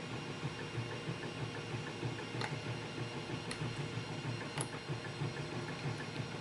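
3D printer running with a steady, fast-pulsing hum from its stepper motors, with three light sharp clicks in the middle.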